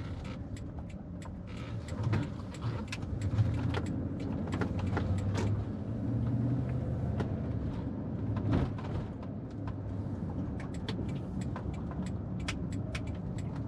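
A car driving at low speed, heard from inside the cabin: a steady low engine and road rumble that swells a little in the middle, with scattered light clicks and ticks throughout.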